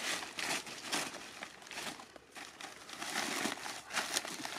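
Fresh leafy branches and dry leaves rustling and crunching as they are pressed and shifted by hand, an irregular run of short crackles.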